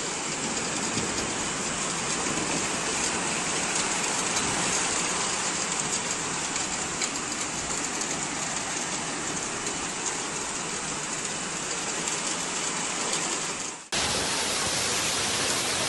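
Hail and heavy rain coming down in a hailstorm: a dense, steady hiss of falling ice and water. It cuts out for an instant near the end, then carries on.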